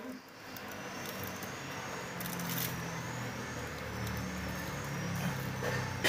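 LG refrigerator's inverter compressor running with a low steady hum, building up just after the start, as the new fridge is switched on to test whether it cools.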